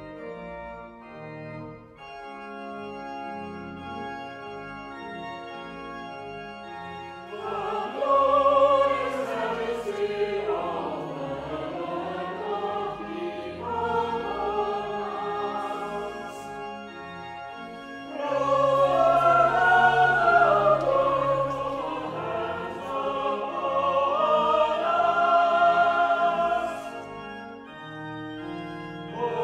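Organ playing sustained chords, joined about seven seconds in by a choir singing with it, louder from then on.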